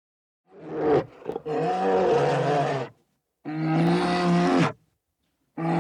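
Bear growling and roaring in a series of long, deep calls, each a second or so long, with short silent gaps between them; the last call starts near the end.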